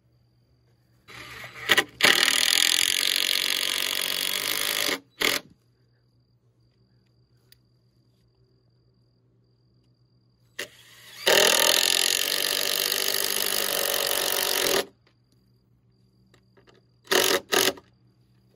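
Cordless drill running under load into wooden boards, in two steady runs of about four seconds each, starting about a second in and about eleven seconds in, with a short burst after the first and two quick trigger pulls near the end.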